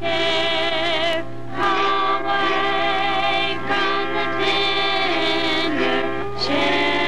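A group of voices singing a hymn in unison or harmony, in phrases of long held notes with a gentle vibrato.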